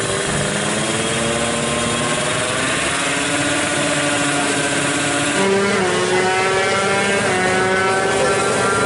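Motorcycle engine running at held revs, its pitch stepping up and down every few seconds.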